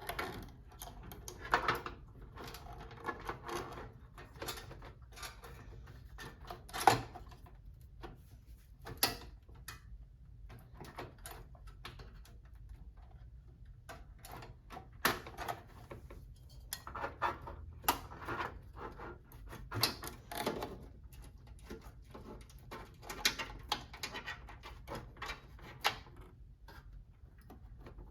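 Irregular clicks, taps and knocks of a motherboard and its cables being handled and worked into a computer case. A few sharper knocks stand out, the loudest about seven seconds in.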